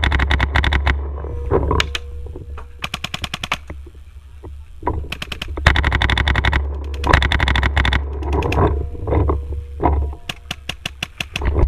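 Paintball markers firing several rapid strings of shots, more than ten shots a second, in bursts of about half a second to a second and a half.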